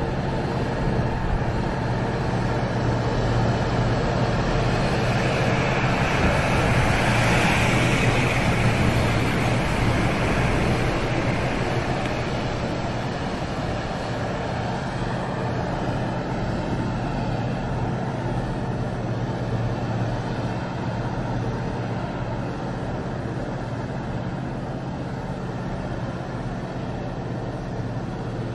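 Heavy diesel machinery running steadily: a low engine drone with a constant hum under a wash of mechanical noise. The noise swells for a few seconds about a quarter of the way in, then settles back.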